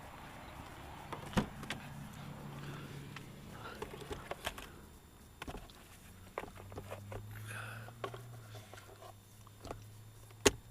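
Scattered clicks and knocks of work around a car, with one sharp knock near the end the loudest, and a low steady hum setting in about halfway through.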